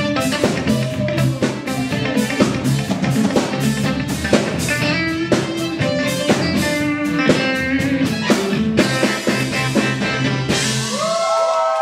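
Live rock band playing: electric guitar over a drum kit and bass line with a steady beat. About eleven seconds in, the drums and low end stop and the guitar's last notes ring out with bends as crowd noise rises.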